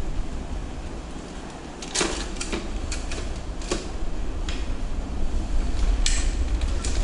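Scattered sharp clicks and knocks of metal bicycle parts being handled during work on a Schwinn mountain bike, with a steady low rumble underneath. The loudest knocks come about two seconds in and again about six seconds in.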